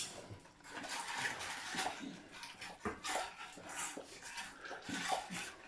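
Small pets eating from their bowls: irregular chewing and clicking sounds, a few every second.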